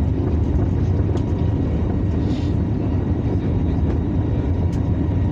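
Steady cabin noise of an Airbus A321neo airliner heard from inside the passenger cabin: an even, low engine and airflow rumble.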